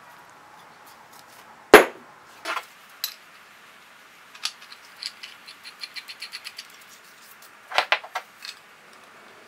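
Iron pipe nipples and floor flanges clinking and knocking as they are handled and screwed together by hand: a sharp metal clank about two seconds in, a run of light quick ticks around the middle, and a couple more clanks near the end.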